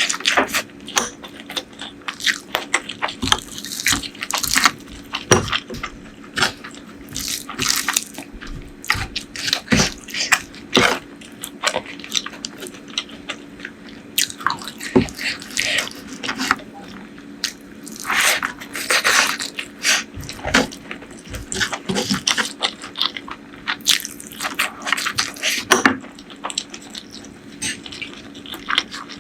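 Close-miked eating: steady chewing of curry and rice with wet mouth smacks, many small clicks and the odd crunch, in an irregular stream.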